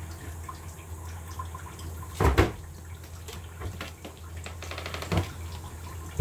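Kitchen work sounds: water being handled and a few knocks of utensils or dishes over a steady low hum, the loudest a double knock about two seconds in.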